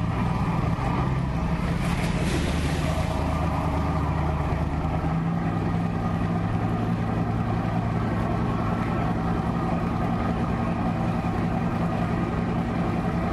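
A steady, unchanging low engine drone with a hiss over it.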